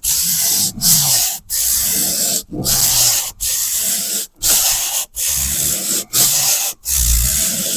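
Hand sander with 80-grit drywall sandpaper rasping back and forth over a dried joint-compound patch in slow, long strokes, about one stroke a second with a brief break at each change of direction.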